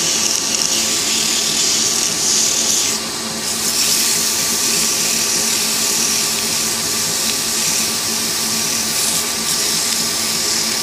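Wood lathe motor running steadily with a hum while 120-grit sandpaper is held against the spinning pen blank, giving a loud hissing scrape that eases briefly about three seconds in.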